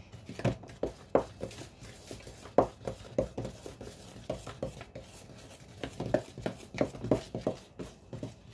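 A utensil stirring thick powdered-sugar-and-milk icing in a plastic measuring jug: irregular light taps and scrapes against the plastic, a few a second.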